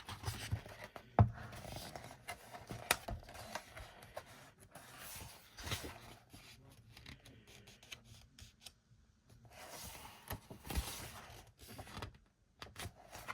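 Pages of a glossy photo book being turned and handled: soft paper swishes with scattered light taps and clicks.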